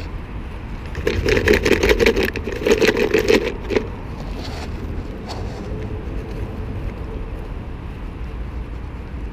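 Rustling and clicking as a yellow plastic sharps container and a fabric backpack are handled, for a couple of seconds starting about a second in; after that a steady low rumble of road traffic.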